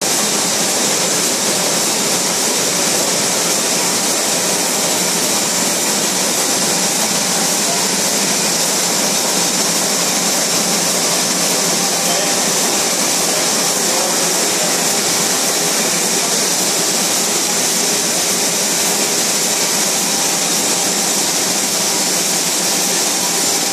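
Steady, even machine whir and hiss of a TGI Aurelia Elite two-colour printing press and its vacuum pump running, with no strokes or pauses.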